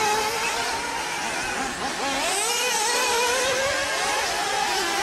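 Radio-controlled off-road cars running on a track, several small motors at once, their pitch rising and falling as they accelerate and slow.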